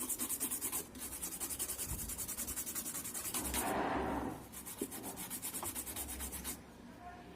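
Rapid back-and-forth scrubbing on a CRT TV's printed circuit board, cleaning it after soldering, about ten strokes a second in three spells with a short break near the middle.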